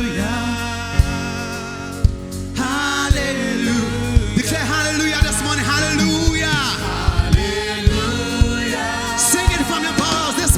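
Gospel worship music: singing over sustained chords, with a beat struck about once a second.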